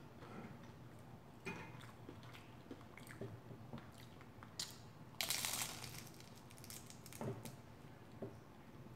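Biting and chewing a fried chicken-and-vegetable egg roll up close, with small wet mouth clicks throughout. There is one loud crunch a little after five seconds in, as the crisp wrapper is bitten.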